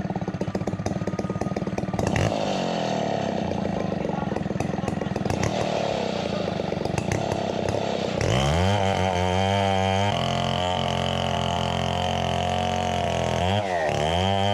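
Chainsaw cutting into a coconut trunk, the engine running under load. About eight seconds in it frees up and revs high and steady, dropping briefly near the end before climbing back.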